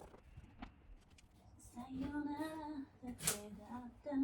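A woman singing softly to herself without accompaniment: a long held note about two seconds in, then shorter notes. A sharp click or knock cuts in just after three seconds.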